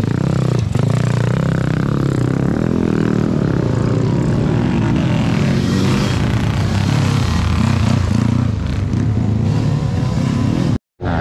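Motocross dirt bike engines running hard and revving up and down as the bikes race along a dirt track. The sound cuts out for a moment near the end.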